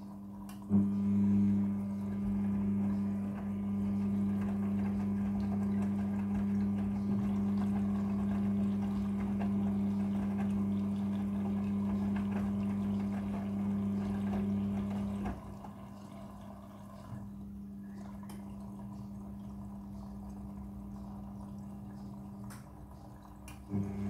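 Midea front-loading washing machine on its wash cycle: the drum motor hums steadily as it tumbles the wet laundry with water sloshing. The motor stops about 15 seconds in, leaving only quieter sloshing and dripping, then starts again just before the end.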